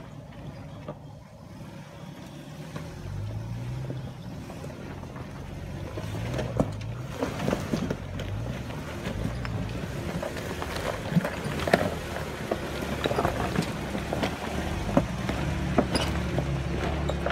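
Jeep Wrangler engines working at low revs while crawling over loose rock, the engine note rising and falling and growing louder. From about six seconds in there are sharp cracks and knocks of stones under the tyres.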